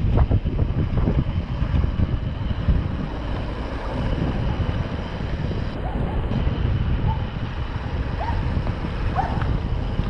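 Wind buffeting the camera microphone on a moving mountain bike, a steady low rumble. A few faint short chirps sound in the second half.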